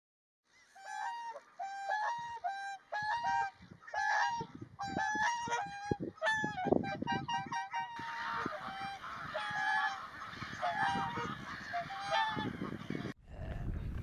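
Greylag geese honking: a rapid series of short nasal calls that thickens about eight seconds in into several geese calling over one another.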